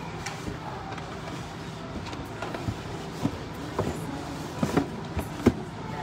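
Handling noises as a shoe is taken out of its box: scattered knocks, taps and rustles, more frequent and louder from about three seconds in, over a steady background hum.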